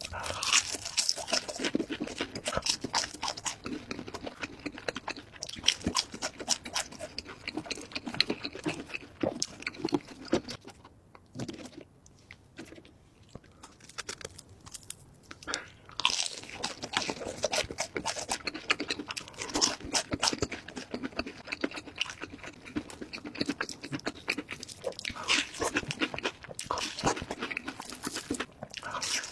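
Close-up crunching and chewing of crispy breaded deep-fried food (chicken nuggets, fried sticks, a hash brown), with bite after bite crackling. The crunching drops off for a few seconds near the middle, then picks up again.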